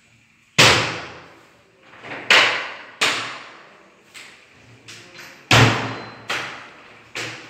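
Hinged PVC wardrobe doors being swung shut, about six sharp knocks against the cabinet frame, each with a short echo.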